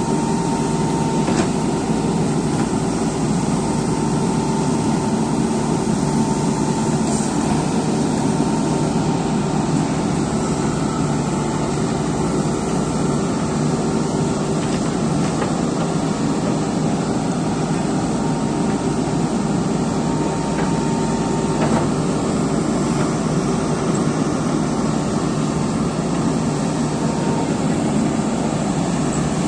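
Diesel engines of JCB 3DX backhoe loaders running steadily under load while digging, with a few faint knocks.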